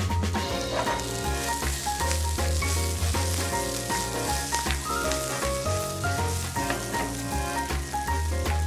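Sliced bell peppers and scallions sizzling in hot olive oil in a nonstick sauté pan, with small clicks as the vegetables are stirred and tossed. Background music with a bass line plays over it.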